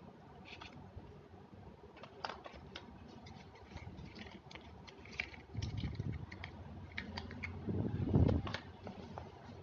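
Small packaged items and plastic objects handled by hand, making scattered clicks and crinkles. Two short spells of dull thumping come about six and eight seconds in.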